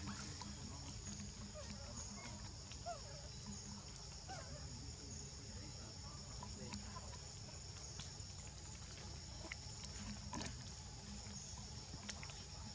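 Steady high-pitched drone of insects in tropical forest, with faint short squeaks scattered through and a brief click about ten seconds in.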